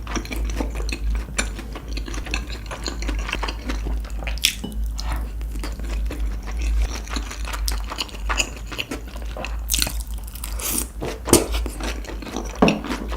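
Close-miked eating: chewing and crunching food, with short clicks of utensils against dishes; a few louder crunches near the end.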